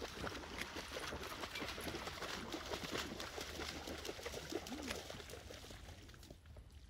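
A retriever dog running and splashing through shallow water, the splashes dense and continuous, then thinning out and fading over the last second or two.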